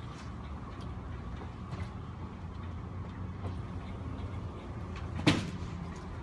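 Steady low rumble of traffic outside, with faint scattered ticks, broken about five seconds in by one sharp knock that rings briefly.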